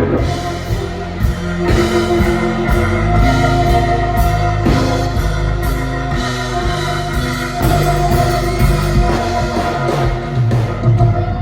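Amplified live blues band playing on an outdoor festival stage: electric guitar over bass and drums.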